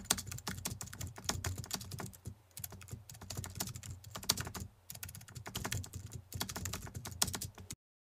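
Rapid computer-keyboard typing sound effect, a dense, uneven run of key clicks that stops suddenly near the end.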